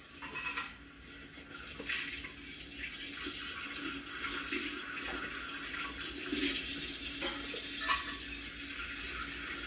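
Hand dishwashing at a sink: tap water running steadily, with a few short knocks and clinks of dishes being handled.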